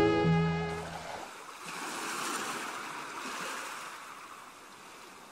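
Held string music dies away in the first second. Then the rushing sound of waves breaking on a beach swells and slowly fades.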